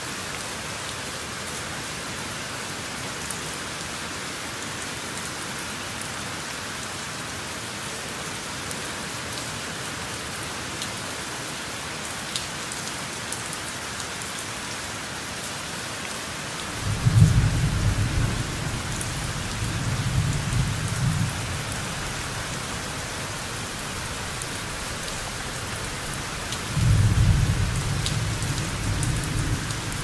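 Steady rain falling, with two low rolls of thunder: the first begins about halfway through and rumbles on for several seconds, the second comes near the end and is the louder part of the mix alongside the first.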